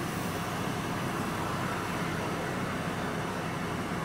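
Vehicle engine idling steadily while stopped, heard from inside the cab, with a low even hum and no sharp sounds.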